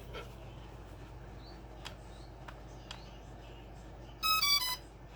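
Upair 2 drone powering up: a few faint clicks, then about four seconds in a short tune of electronic beeps stepping down in pitch, its start-up chime.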